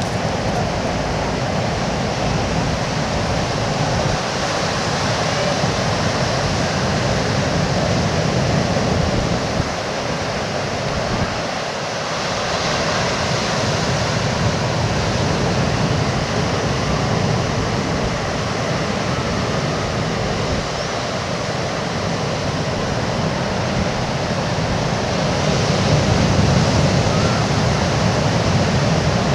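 Ocean surf washing on a beach: a steady roar of noise that slowly swells and eases, loudest near the end, with wind mixed in.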